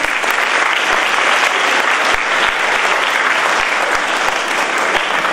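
Large audience of schoolchildren and adults clapping: steady, sustained applause.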